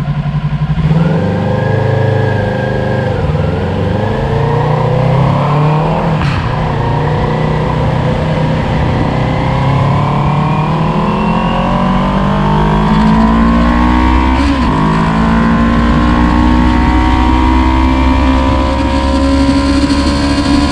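Motorcycle engine heard from on board, pulling away and accelerating, its pitch climbing slowly and steadily as the bike gathers speed.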